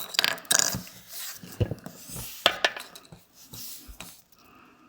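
Small clicks, taps and scrapes of 3D-printed puzzle box parts being handled as a locking pin is fitted into a corner of the lid, loudest in the first three seconds.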